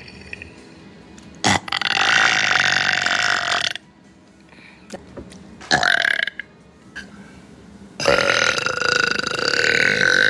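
A woman burping three times: a long, drawn-out burp about two seconds in, a short one near the middle, and another long burp near the end.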